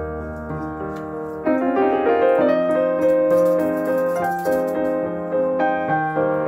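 Background piano music playing a gentle melody with chords, getting louder about a second and a half in.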